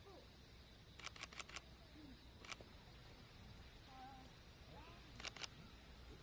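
Camera shutters clicking: a quick burst of four clicks about a second in, a single click a little later, and two more near the end, over faint, distant voices.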